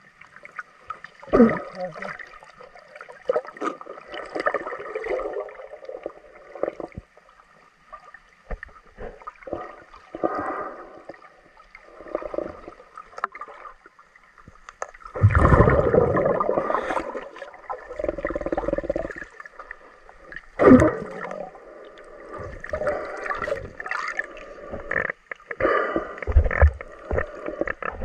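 Muffled water sloshing and gurgling heard through an underwater camera housing, coming in irregular surges. The longest and loudest surge is about fifteen to seventeen seconds in, and a sharp one comes near twenty-one seconds.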